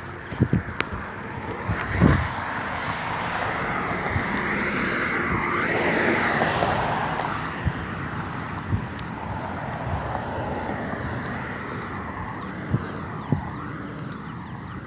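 Rushing noise of a passing vehicle that swells to a peak about six seconds in and then slowly fades. A few scattered footstep knocks on the pavement sound over it.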